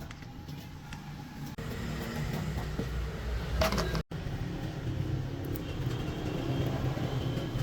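A vehicle engine running with a steady low rumble and a few sharp clicks. The sound breaks off abruptly twice, about a second and a half in and again about four seconds in.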